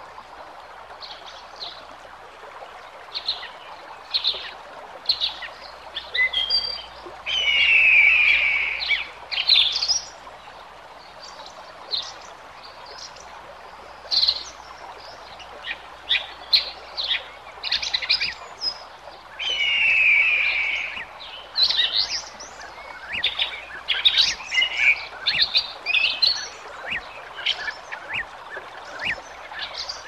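Several songbirds chirping and singing in a forest chorus, with many short high calls and two longer trilled calls about eight and twenty seconds in, over a steady soft background noise.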